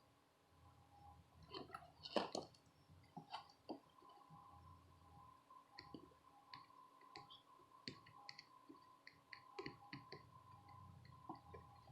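Faint small clicks and taps of soldering work on a circuit board, a louder cluster about two seconds in, over a faint steady hum.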